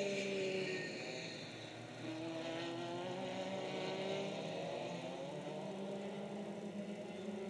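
Two-stroke Rotax racing kart engines heard from the trackside, their pitch rising and falling as the karts accelerate and lift. A nearer kart fades away in the first second or so, and another kart's engine note climbs from about two seconds in.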